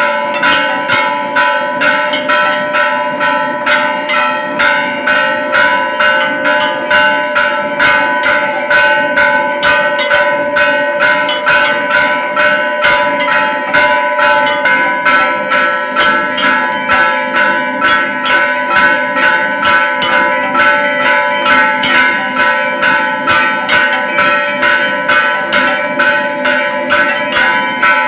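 Hindu temple bell struck over and over at an even pace, roughly two strikes a second, each ring carrying into the next.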